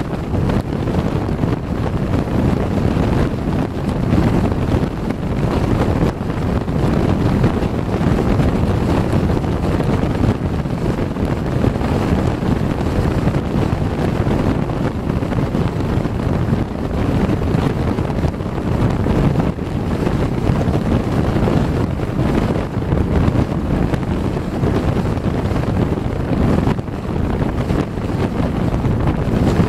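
Steady rush of wind buffeting the microphone, mixed with road and tyre noise from a car driving at highway speed.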